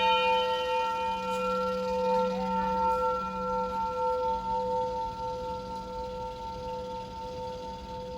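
Gamewell fire alarm bell ringing on after its last stroke of the box-number code, several steady tones held together and slowly dying away.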